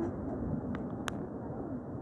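Steady background hubbub of an open-air market, with two short sharp clicks about a second in.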